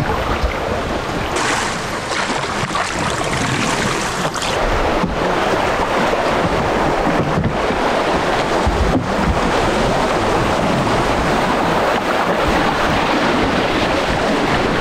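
Shallow river rapids rushing and splashing around a plastic sit-on-top kayak as it is paddled downstream, with a few sharp knocks and wind buffeting the microphone.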